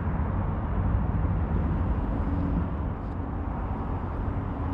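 Wind buffeting a small action-camera microphone: a steady, rumbling low noise that rises and falls, with a faint steady hum underneath.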